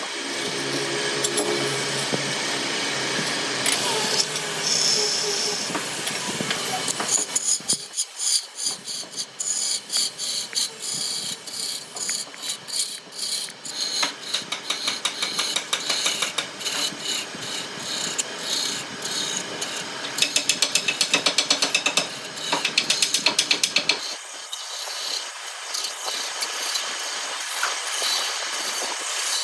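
Woodworking tools at work: continuous rasping, scraping noise with many rapid clicks, and twice, a little past two-thirds of the way in, a brief run of fast, even pulses.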